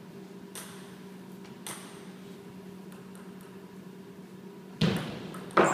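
Table tennis ball hitting bat and table: two faint ticks early on, then two sharp knocks near the end about a second apart as the point is played. A steady low hum runs underneath.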